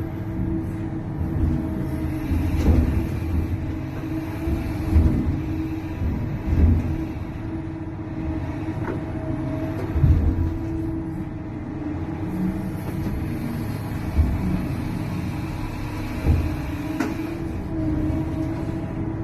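Large excavator's engine running steadily with a constant hum, with irregular heavy low thuds every second or two.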